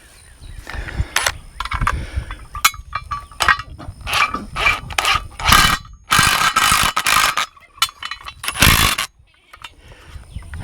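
Socket ratchet wrench driving a screw into the wooden gate post, clicking in quick runs of strokes with longer stretches of ratcheting in the second half.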